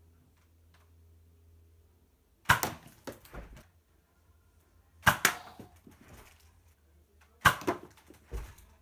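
A homemade blaster firing three times, about two and a half seconds apart: each shot is a sharp snap followed by a few smaller knocks as the projectile lands and bounces.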